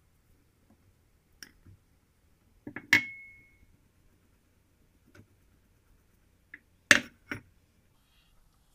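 Scattered sharp taps and clinks of kitchen utensils against bowls while flour is sifted into cake batter. One clink about three seconds in rings briefly. The loudest is a pair of knocks about seven seconds in.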